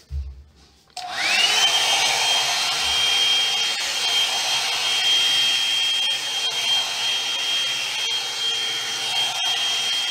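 Hot-air brush dryer switched on about a second in, its motor spinning up with a rising whine that settles into a steady high whine over the rush of blown air as it dries wet hair.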